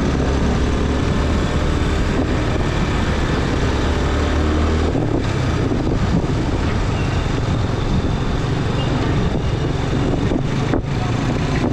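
Steady running of a Hero Glamour 125 cc single-cylinder motorcycle at low city speed, heard from the rider's seat together with road and traffic noise from surrounding motorbikes and cars. Its low hum eases about five seconds in.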